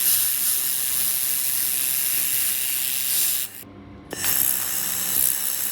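2000 W handheld fiber laser welder welding, a steady hiss in two runs with a break of about half a second near the middle.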